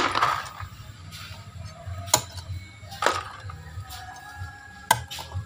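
A few sharp knocks and clicks of a knife chopping the tips off freshwater snail shells on a wet wooden board, and of the hard little shells being handled: one at the start, then about two, three and five seconds in.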